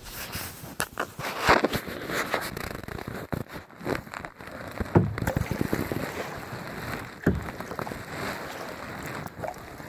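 A kayak being paddled on calm water: irregular water splashes and drips from the paddle, with a few sharper knocks, over wind noise on the microphone.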